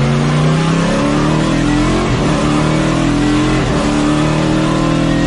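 Race car engine running at speed, a loud, steady engine note that wavers briefly in pitch about two seconds and three and a half seconds in.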